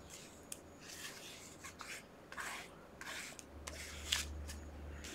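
Soft scratchy rubbing strokes with a few light ticks: the nozzle of an Elmer's school glue bottle dragged across a paper page as glue is laid down, with the paper rustling.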